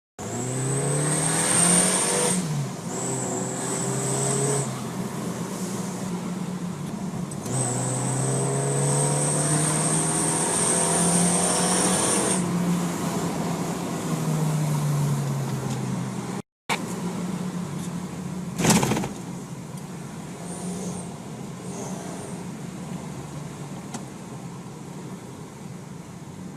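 Car engine revved in three long pulls through an exhaust-mounted turbo-sound whistle, a high steady whistle riding over the engine note with each rev. After a short break about two-thirds in, the engine runs quieter, with one sharp knock and a couple of faint brief whistles.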